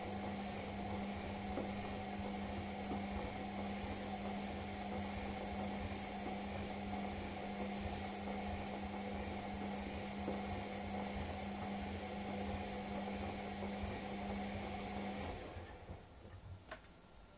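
Indesit washing machine running with a steady mechanical hum that stops about fifteen seconds in, followed by a single click.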